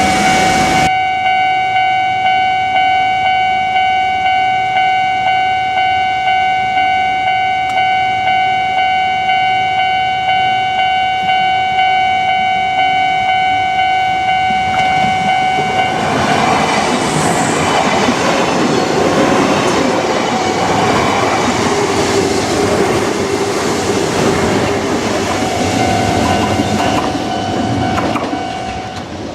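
Japanese level-crossing warning bell ringing in a steady, regular repeat. About halfway through, a Kintetsu Nagano Line electric train passes over the crossing, its running noise drowning the bell, which can be heard again faintly near the end.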